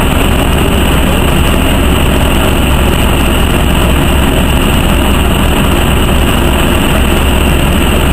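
Inside a NovaBUS RTS transit bus standing still with its engine idling: a steady low engine hum with cabin noise over it, unchanging throughout.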